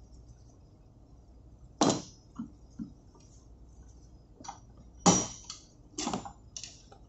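Steel parts knocking and clinking as a milling tool is handled and fitted onto a high-pressure fuel pipe held in a bench vise: a handful of sharp metallic knocks, the loudest about two and five seconds in.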